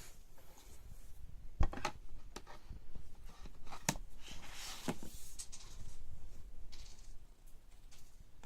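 Close handling of the tablet and its packaging: a series of light clicks and knocks, the sharpest about a second and a half in, with a short stretch of rustling in the middle.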